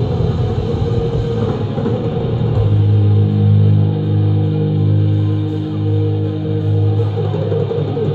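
Live black metal band with distorted electric guitars playing; about two and a half seconds in, the drums stop and a distorted guitar chord is held, ringing, for about four seconds.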